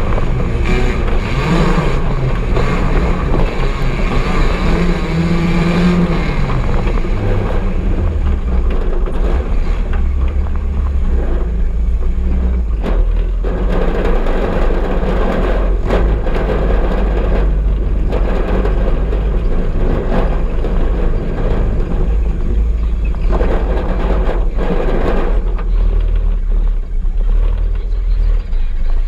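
Off-road cage buggy's engine running hard, heard onboard, its pitch rising and falling with the throttle, with knocks and rattles from the rough ground.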